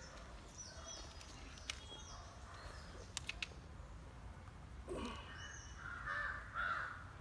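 Crows cawing a few times, loudest in the last two seconds, with several short, high, falling chirps and a few faint clicks earlier on.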